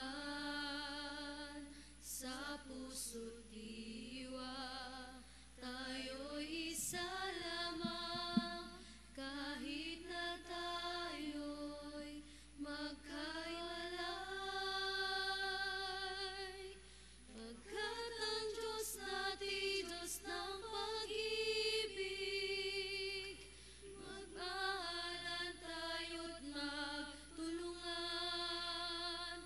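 Church choir singing a communion hymn, with high voices carrying the melody, in long held phrases with short breaks between them.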